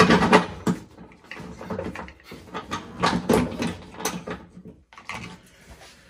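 Irregular clicks, knocks and rustling as a seatbelt retractor and its webbing are handled and pushed into place against a metal floor bracket. The loudest knocks come right at the start and again around three seconds in.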